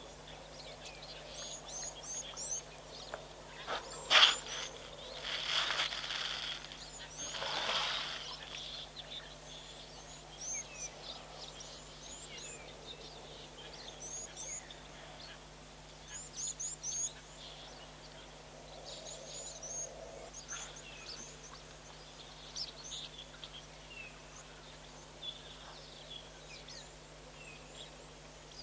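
Small birds chirping and calling on and off, with a faint steady hum underneath. About four seconds in comes one sharp knock, the loudest sound, followed by two short rushing noises over the next few seconds.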